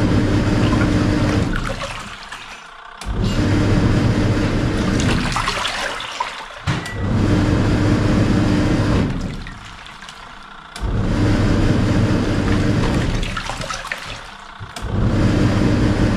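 Samsung SW-655P twin-tub washing machine's wash tub at work: the pulsator motor hums and churns the water in bursts of about two and a half seconds, stopping for about a second between bursts as it reverses direction, four times over.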